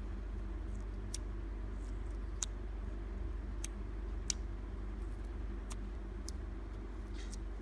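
Clear glitter slime being played with by hand: scattered short sticky clicks and small pops, roughly one a second at uneven spacing, a slightly longer squish near the end. A steady low hum runs underneath.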